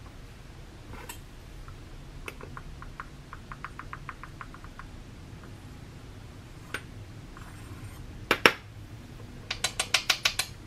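A measuring spoon clinking and tapping against kitchenware while cornstarch is measured out. About two seconds in there is a run of light, quick ticks lasting a couple of seconds. Later come two loud knocks, then a fast run of about seven sharp taps near the end.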